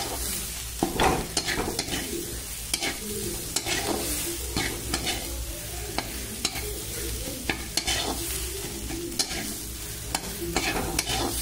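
A spatula scraping and knocking against a frying pan as crumbly anda bhurji (spiced scrambled eggs) is stirred and turned, in irregular strokes several times a second. A faint sizzle of the eggs frying runs underneath; they are still being cooked through.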